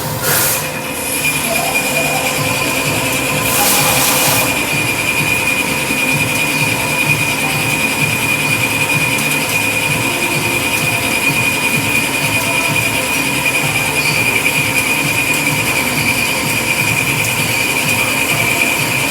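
Portable line boring machine cutting metal: a steady high-pitched squeal from the boring tool over the rough rumble of the drive, with a brief burst of hiss about four seconds in.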